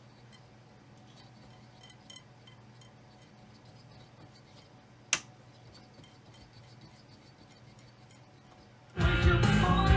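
A faint steady low hum with a few small ticks and one sharp click about five seconds in. Loud rock music with singing starts suddenly near the end.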